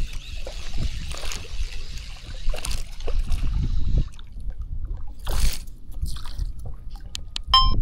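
Water sloshing, with a low rumble of wind on the microphone. About five seconds in comes a brief whoosh, and near the end a few sharp clicks and a short high squeak.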